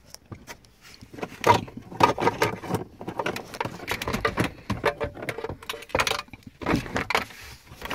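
Irregular clicks, knocks and rattles of a plastic dashboard bezel and a set of keys being handled and worked loose by hand in a pickup cab.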